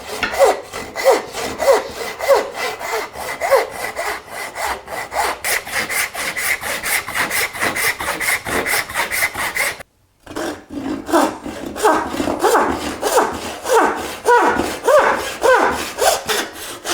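Hand saw cutting through wood in quick, even back-and-forth strokes, with a short break about ten seconds in.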